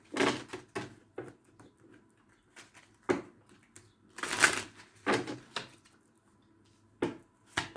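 A deck of tarot cards being shuffled by hand. There are irregular short rustles and card snaps, about eight of them, with pauses in between; the longest and loudest comes about four and a half seconds in.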